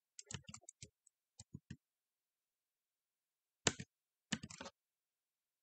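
Faint computer keyboard typing in short, sparse clusters of clicks, with two louder groups of clicks about two-thirds of the way through.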